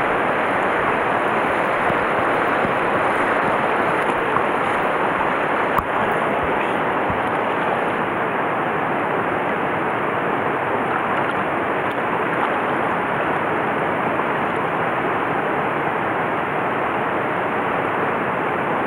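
Shallow mountain river rushing steadily over boulders in a riffle, a continuous even rush of water. A single light click about six seconds in.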